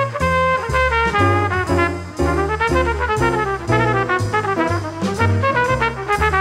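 Instrumental background music with a bass line moving in even, quick notes and melody notes above it.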